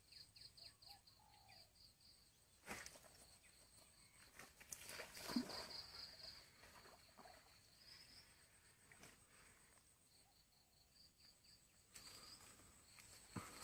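Quiet outdoor ambience with a high, rapidly repeated chirping call that comes in several runs, and a few sharp knocks.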